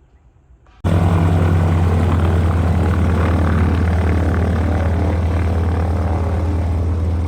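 de Havilland DHC-2 Beaver's Pratt & Whitney R-985 radial engine and propeller running steadily with a strong low drone, cutting in abruptly about a second in.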